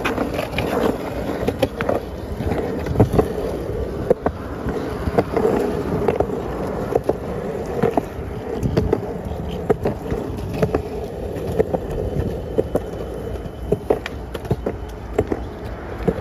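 Skateboard rolling on concrete pavement: a steady wheel rumble broken by sharp clacks at irregular intervals.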